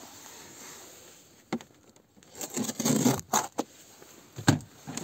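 Packaging being cut open with a knife: scraping and tearing with a couple of sharp clicks, the loudest stretch in the second half.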